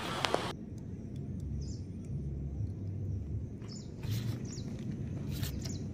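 Birds chirping in several short calls over a low, steady outdoor rumble, with a few faint clicks.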